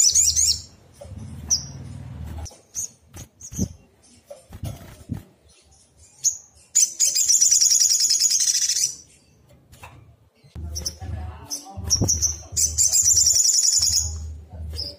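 Sogok ontong (sogon), a small bird of the sunbird family, singing fast high trills about two seconds long, one ending just as the sound begins and two more in the middle and near the end, with short single chirps between them.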